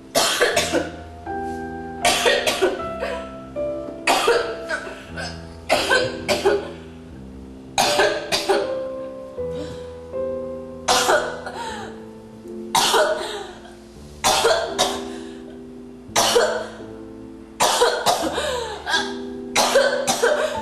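Slow piano music with held notes, over which a person coughs hard again and again, a loud cough every one to two seconds.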